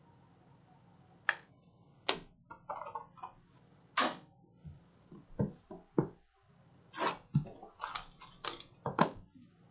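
Trading cards and their packaging being handled on a table: an irregular series of short, crisp snaps and rustles of card stock.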